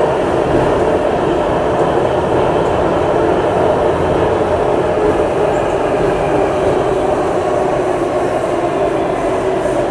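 Singapore MRT metro train running steadily through a tunnel, heard from inside the carriage: an even rumble and rush of wheels and traction motors with a faint hum, no braking or announcements.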